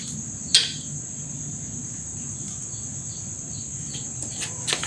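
Crickets trilling steadily, one continuous high-pitched chirring, with a sharp click about half a second in and a few light clicks near the end.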